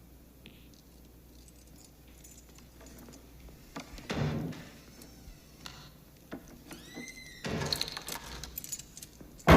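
Quiet film sound of small handling noises over faint room tone: scattered clicks and knocks like keys and a door. A louder thud comes about four seconds in, and a short squeak and a clatter come near the end.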